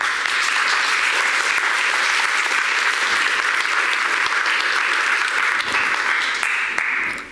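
An audience applauding, a steady dense clapping that stops abruptly shortly before the end.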